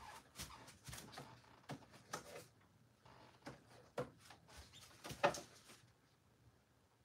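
A string of short knocks, taps and scrapes of objects being handled, the loudest a little after five seconds, dying away about a second later.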